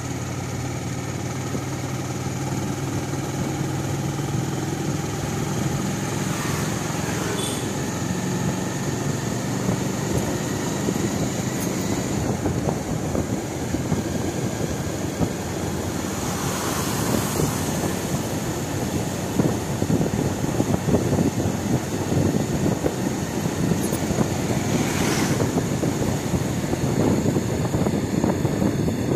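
A vehicle's engine running steadily as it travels along a road, with wind and road noise. A rougher rushing noise takes over after about ten seconds, and it swells louder twice in the second half.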